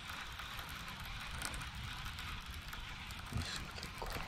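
Daiwa Tatula TW100 baitcasting reel cranked steadily on a retrieve, giving a soft, even whir.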